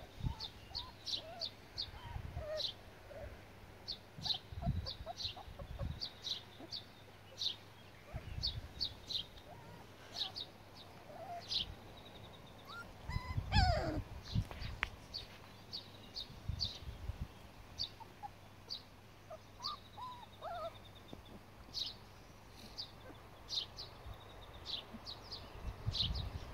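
Young border collie puppies making small whimpering sounds, with one louder falling yelp about halfway through, over the quick repeated high chirps of a small bird. Low rumbles come and go on the microphone.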